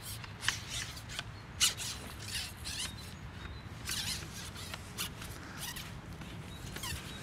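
Scattered light clicks and rustles of a fishing pole and its line being handled, over a low rumble of wind on the microphone.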